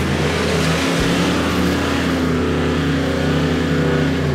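Four-wheel-drive ute towing a loaded trailer, its engine running steadily under load as it drives through mud and shallow water, with the hiss of tyres and splashing over it.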